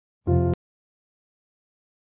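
A brief steady musical tone, about a third of a second long, cut off abruptly with a click.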